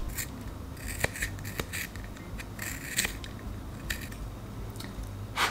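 A 2B drawing pencil being sharpened in a small handheld sharpener with a clear shavings box: a run of short, irregular scraping strokes as the blade shaves the wood, with a few sharp clicks.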